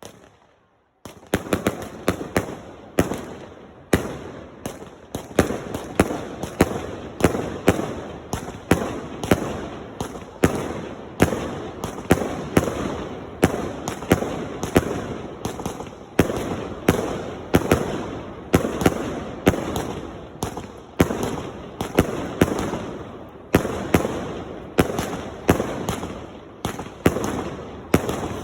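Fireworks going off in a continuous barrage. Sharp bangs come about two a second, with crackling between them, starting about a second in.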